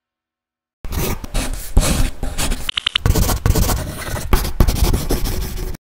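Pencil-on-paper scribbling sound effect, loud and choppy with many quick strokes, beginning about a second in after silence, with a short run of high chirps near the middle.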